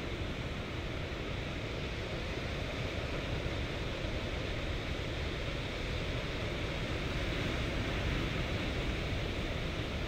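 Ocean surf washing steadily on a beach, swelling slightly a little past the middle.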